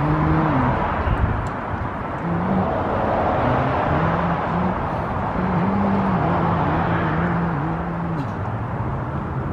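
Steady outdoor street noise: a continuous rumble and hiss of traffic, with a low humming tone that shifts pitch in steps.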